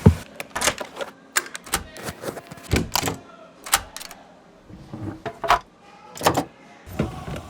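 Irregular sharp clicks and knocks of tools and parts being handled, several with a brief metallic ring, during work on a car's air-conditioning evaporator.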